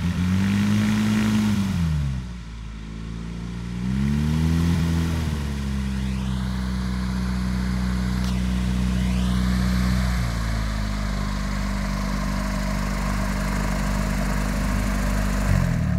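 Propeller-driven piston engine of a homebuilt Facil MS 1/3 light aircraft taxiing. The revs rise and fall twice in quick bursts of throttle, then hold steady, and near the end the engine note drops sharply as it is throttled back.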